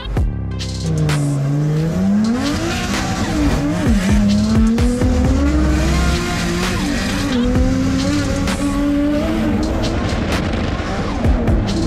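Drift car engine revving hard, its pitch climbing and dropping again and again as the car slides, with tyres squealing. It starts abruptly, at full level.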